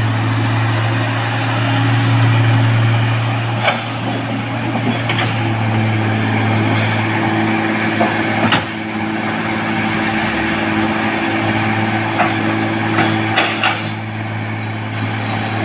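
Heavy diesel machinery engine running steadily, with several sharp metallic clanks scattered through.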